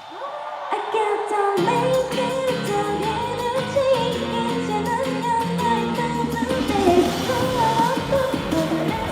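Female lead vocal singing a pop-rock song with a live band. The voice starts over a sparse backing, and the full band with bass and drums comes in about a second and a half in.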